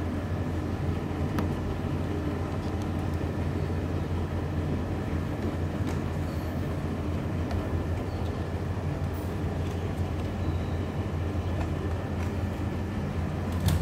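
A steady low mechanical hum with a light rumble, even throughout, with a few faint clicks over it.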